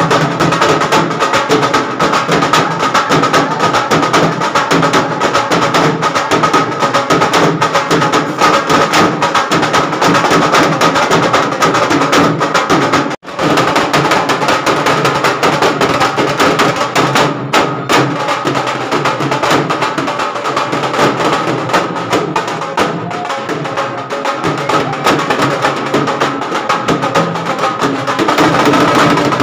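Live devotional kirtan music led by hand-played dholak drums beating a steady rhythm, with clacking hand percussion over it. The music drops out for a moment about 13 seconds in.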